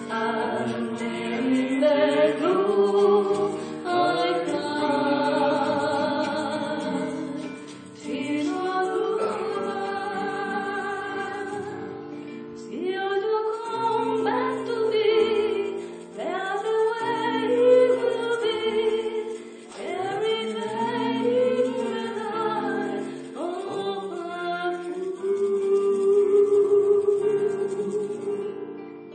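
A choir singing, several voices together holding long notes.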